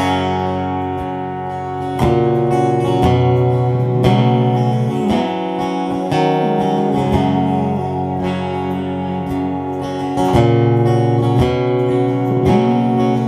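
Acoustic guitar strumming chords at a steady pace, with no singing: the instrumental ending of a song.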